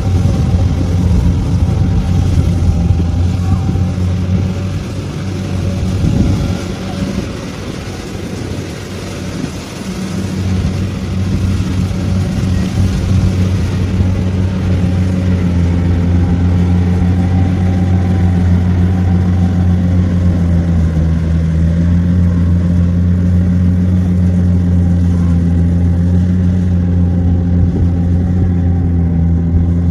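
Heavy engine of a harvesting machine running steadily. It drops lower and quieter for a few seconds around a third of the way in, then comes back up and holds steady.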